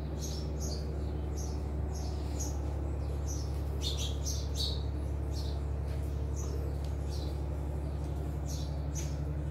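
Small birds chirping in short, high calls, over and over, above a steady low hum.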